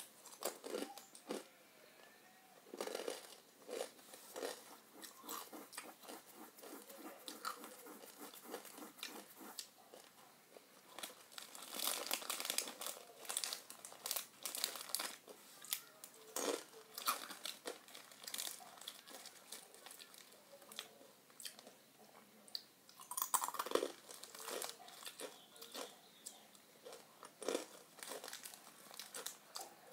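Irregular crunching and crackling close to the microphone, coming in uneven clusters of sharp little clicks.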